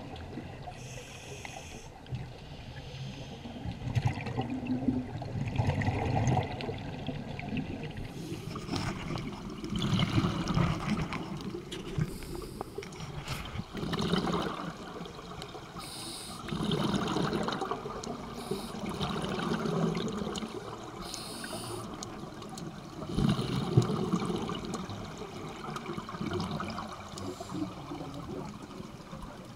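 Scuba diver breathing through a regulator, recorded underwater: rushes of exhaled bubbles come in swells every three to four seconds, with a higher hiss between them.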